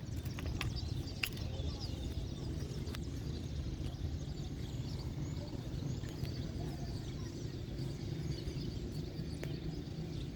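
Outdoor ambience: a steady low rumble with faint bird chirps and a few soft clicks.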